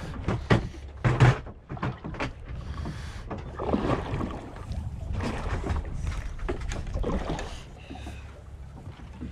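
Sea water slapping and sloshing against the hull of a small boat, over a steady low rumble. There are a few sharp knocks in the first second or so.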